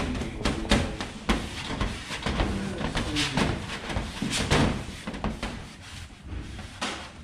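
Plastic squeegee scraping vinyl wrap onto a race car body panel while the backing sheet is peeled away, making irregular crackles, rubs and pops that thin out near the end.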